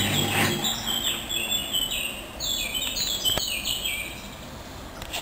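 Hoover washing machine: its motor hum stops about half a second in. Then a short electronic tune of stepped high-pitched beeps plays from the control panel, with a single click in the middle of it.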